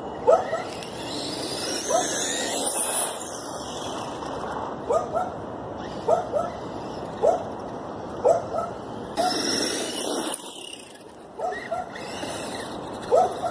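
A dog barking in short, sharp barks, about one a second and some in quick pairs. About a second in, a faint high whine rises and falls, fitting the brushless electric motor of the Traxxas Stampede RC truck making a speed pass.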